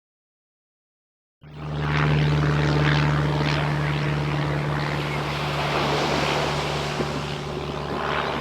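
After about a second and a half of silence, a steady engine drone comes in quickly and holds: a low, even hum over a rushing hiss.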